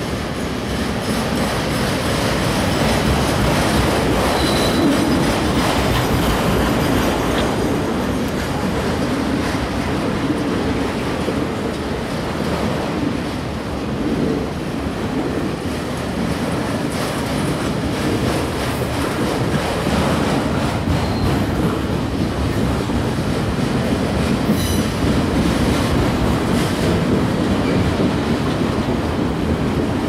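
Autorack freight cars rolling past with a steady rumble and clatter of steel wheels on the rails. A few short, high wheel squeals come through, about four seconds in and again near twenty-five seconds.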